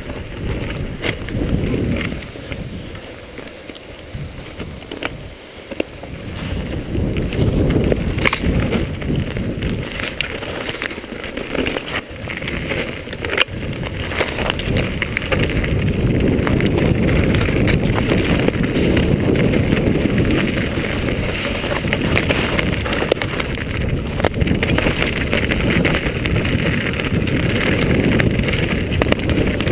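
Wind buffeting the camera microphone as a mountain bike descends a dirt trail at speed, with the rattle and knocks of the bike over rough ground. It grows louder from about seven seconds in.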